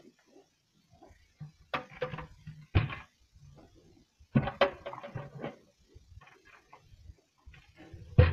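Ground ear corn being taken from a gravity wagon's door into a plastic bucket: irregular knocks, rattles and rushes of the bucket and the pouring feed, with a sharp knock near the end.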